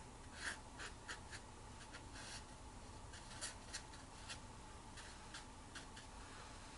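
Small paintbrush stroking and dabbing on watercolour paper: a string of faint, short scratchy strokes, coming close together over the first few seconds and more sparsely after that.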